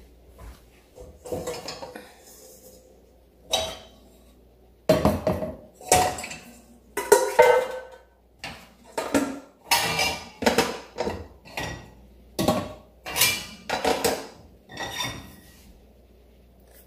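Dishes and cutlery clattering and clinking as they are washed by hand, a long irregular run of knocks and clinks with brief ringing that starts about a second in.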